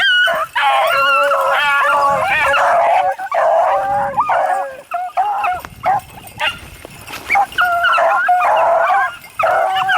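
A pack of beagles baying as they run a rabbit, many howling voices overlapping. The cry is dense for about five seconds, thins out, then swells again near the end.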